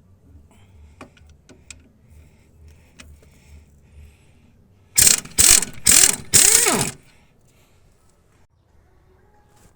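Ratchet wrench run in four quick bursts, each with a whine that rises and falls in pitch, as a bolt is turned during a wheel hub and bearing assembly. A few faint clicks come before it.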